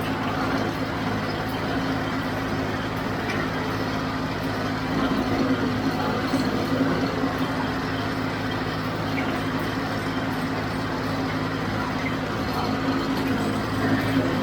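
John Deere 5055D tractor's diesel engine running steadily under load, pulling a John Deere 348 square baler through the windrows.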